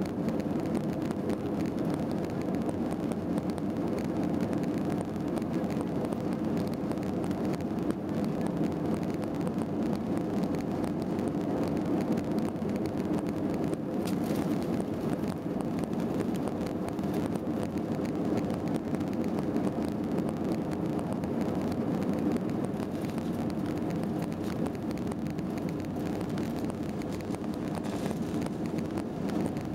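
Steady engine and airflow roar inside the cabin of an Airbus A321-200 airliner, heard from a window seat near the rear.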